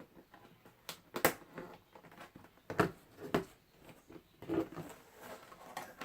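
Hard plastic toy parts being handled and fitted together: a handful of scattered clicks and knocks.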